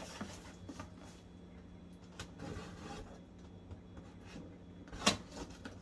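Faint scraping and handling of a box as the tape on its other side is cut open, with scattered light clicks and one sharper knock about five seconds in, over a faint steady hum.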